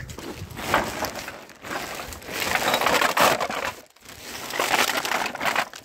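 Loud crunching and crumpling close to the microphone, in three long bursts with short breaks between.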